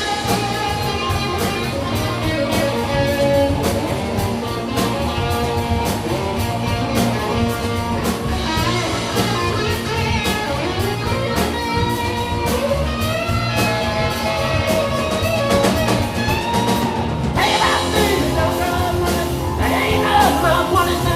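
Live rock band playing an instrumental break between verses, with a bending guitar lead over drums and bass.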